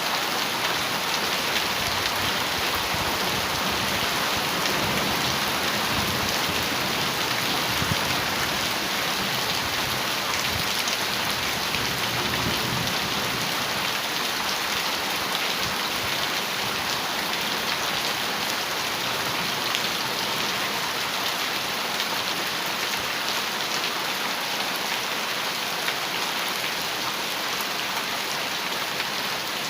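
Heavy rain drumming on a metal roof: a steady dense hiss of drops with fine ticking patter. Low, distant thunder rumbles under it through the first half and fades out after about halfway.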